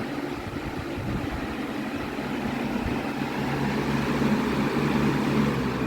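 Lasko Power Plus box fan (B20540) running on high: a steady rush of air with a low hum, from a fan that the owner says is out of balance.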